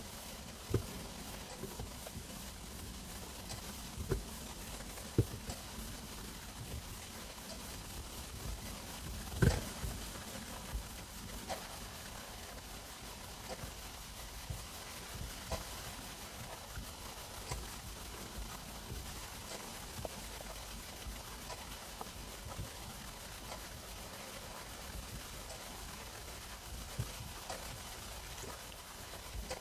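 Human stomach rumbling and gurgling while digesting a meal: scattered short gurgles and pops over a steady low hiss, the loudest about nine and a half seconds in.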